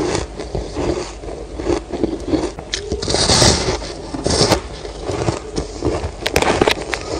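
Biting and chewing a block of fluffy, dry frozen ice: irregular crunching and crackling, with the loudest crunchy bite about three seconds in and crisp crackles near the end.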